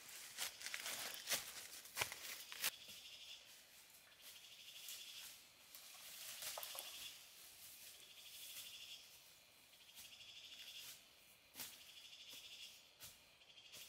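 Insects trilling in repeated bursts of about a second each, every couple of seconds, high-pitched and faint. In the first few seconds there are crackles of footsteps on dry bamboo leaf litter.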